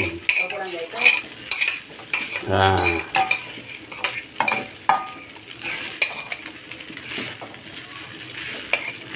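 Fried rice sizzling in a wok while a spatula stirs and scrapes it, with irregular scrapes and clinks against the pan. There is a short low hum about two and a half seconds in.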